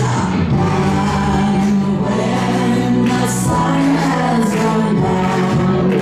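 Recorded song with singing voices over sustained accompaniment, played back as the track for a lip-sync stage performance.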